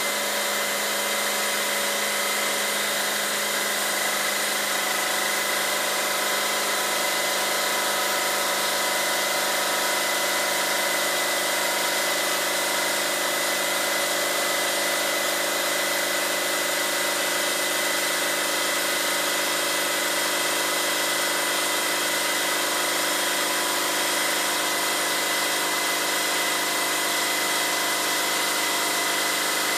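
Benchtop injection molding machine running during an injection shot, pushing molten plastic into a faceplate mold: a steady mechanical hum with a steady high whine.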